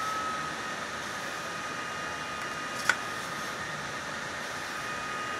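Steady fan-like background hiss with a faint high whine, and a single sharp click about three seconds in as the plastic transmission case and gears are handled.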